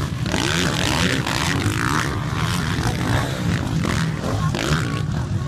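450 cc motocross bike engines revving on the track, pitch rising and falling as the riders work the throttle over the jumps.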